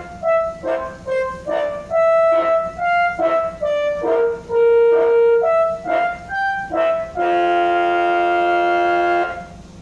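Tour bus telolet horn, a set of air-horn trumpets, playing a tune in short separate notes, then holding one long chord of several pitches that cuts off shortly after nine seconds in.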